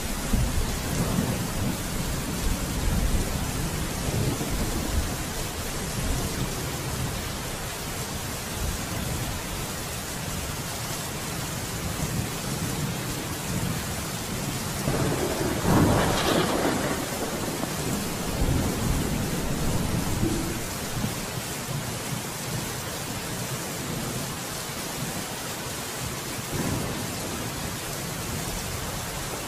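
Steady rain with low rumbles of thunder; a louder rumble of thunder swells about halfway through.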